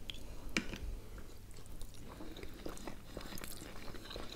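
Close-miked chewing of beshbarmak, soft boiled noodle sheets and beef, with small wet mouth clicks.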